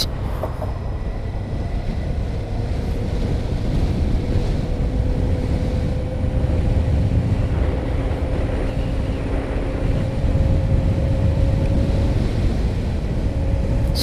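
Steady wind rush and low road and engine rumble inside a motorcycle helmet at road speed, picked up unprocessed, with noise cancelling off, by a clip-on wireless lavalier mic on the helmet's intercom boom. A faint steady tone sits above the rumble.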